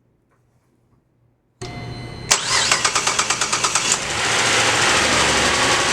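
A car engine is cranked by its starter for under a second, catches, and pulses quickly for about a second and a half before settling into a steady idle. This is the first start after an oil change, on a fresh refill of oil.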